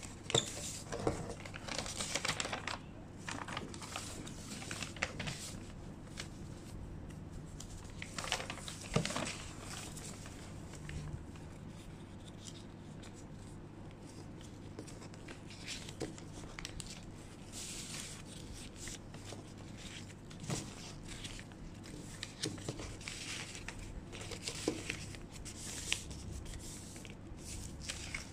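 Paper rustling and crinkling in irregular bursts as sheets are handled, folded and creased by hand, with a few light clicks.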